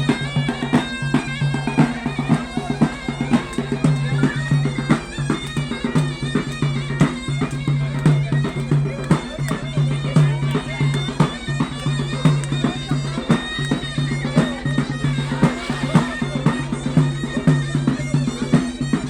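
Loud traditional music: a reedy wind instrument plays a melody over a steady low drone, with frequent drum beats.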